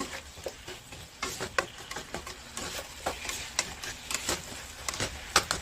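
A spatula stirring and scraping a pan of curry masala with eggplant and lentil dumplings as it sizzles, with irregular clicks and knocks of the spatula against the pan.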